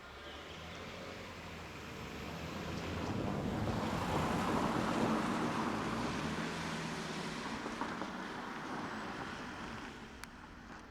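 Train passing at speed, its rumble swelling to a peak about halfway through and then fading away.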